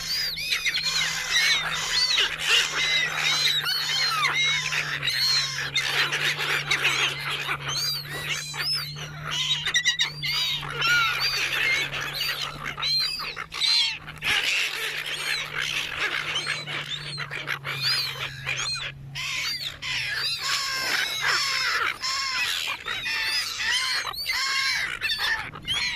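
A flock of seagulls squawking and calling over one another while competing for thrown food, with many short, arched cries overlapping throughout. A low steady hum lies under the calls and stops near the end.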